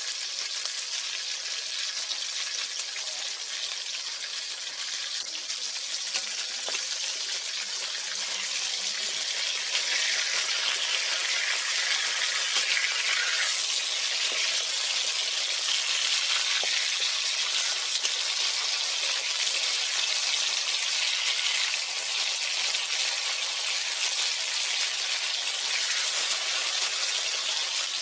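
Boal (wallago catfish) steaks sizzling as they shallow-fry in hot mustard oil in a kadai. The sizzle is steady and gets louder about ten seconds in.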